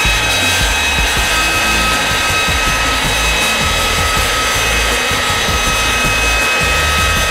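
Aero L-39 Albatros's Ivchenko AI-25TL turbofan running at taxi power: a steady jet whine made of several high tones over a rushing noise, with an uneven low rumble underneath.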